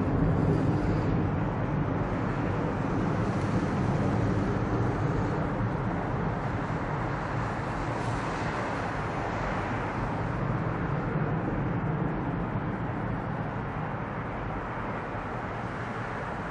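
Boeing 747 jet engines at climb power as the four-engine airliner departs after takeoff: a steady, deep rumble that slowly fades as it flies away.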